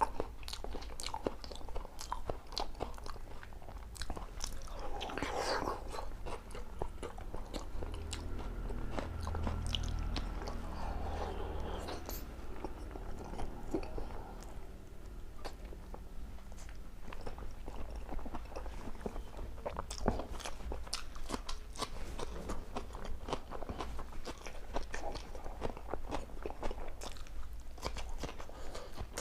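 A person eating close to the microphone: continuous chewing and biting of boiled eggs, green chillies and salad, with crisp crunches and many small wet mouth clicks.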